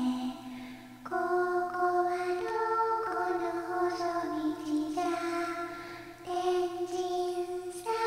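Slow background music of long held notes that change every second or two.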